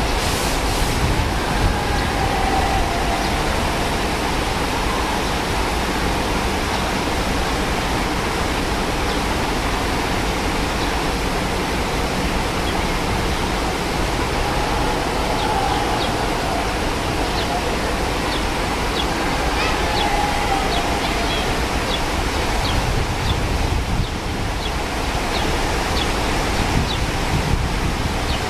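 Steady rushing of the Hatzbani stream's water over rocks and rapids, a continuous loud noise. Short, high chirps repeat through the second half.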